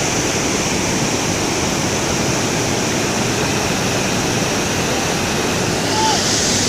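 Waterfall's steady rushing roar of falling water, growing a little louder and hissier about six seconds in.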